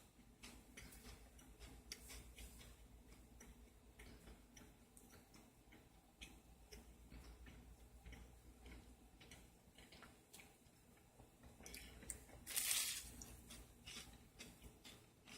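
Faint chewing of a toasted grilled cheese sandwich: soft crackling clicks throughout, with one louder burst of noise about twelve and a half seconds in.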